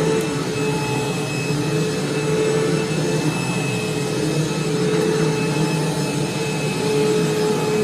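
2005 Hoover Preferred bagged upright vacuum cleaner running steadily: a steady motor whine over the rush of its airflow.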